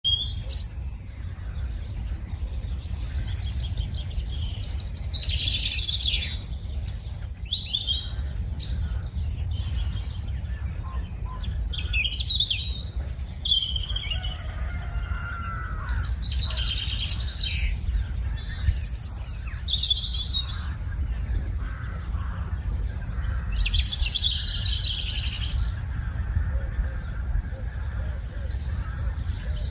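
Birds chirping and singing in quick high trills and calls throughout, over a steady low rumble.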